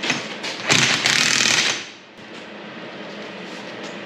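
A loud mechanical rattle lasting about a second, from a workshop tool working on steel, then light metal clinks.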